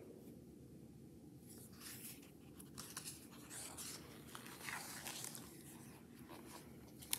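Pages of a hardcover picture book being turned by hand: faint, scattered paper rustling and crinkling, with one light tap just before the end.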